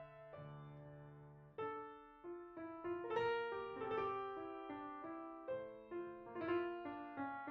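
Solo grand piano playing classical music: a held chord dies away for about a second and a half, then new notes and chords are struck in a flowing line, several per second.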